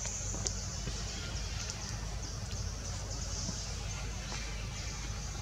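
Forest ambience: a steady high-pitched insect drone over a low rumble, with a few faint clicks.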